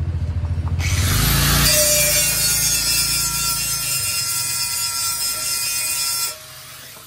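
Handheld angle grinder grinding a metal pot, throwing sparks: a loud, harsh hiss over a steady motor whine that starts about a second in and cuts off sharply about six seconds in. A low pulsing hum comes before it.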